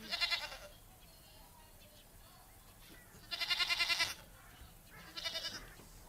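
Goats bleating three times, short wavering calls, with the middle one the longest.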